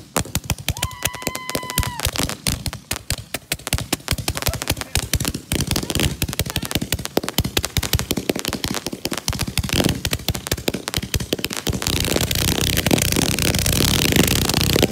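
Consumer fireworks going off in rapid succession: a fast, irregular run of sharp cracks and bangs that thickens into a near-continuous crackle over the last few seconds. A brief high whistle sounds about a second in.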